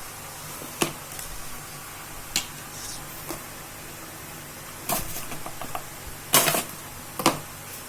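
Handling noise from unpacking a portable blender and its accessories: a few scattered sharp clicks and knocks with brief rustling, the loudest about six and a half seconds in, over a steady hiss.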